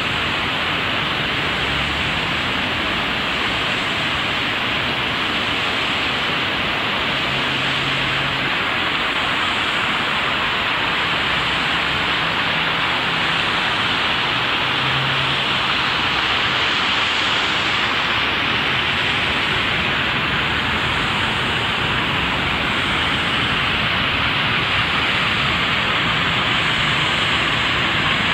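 Water splashing in a fountain: a steady, even rushing hiss that does not change.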